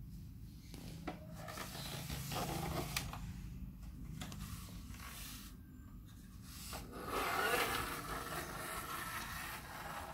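Hard plastic toy-playset parts rubbing and scraping under a hand, with a few light clicks, in two stretches: from about a second in and again from about seven seconds in, the second the louder.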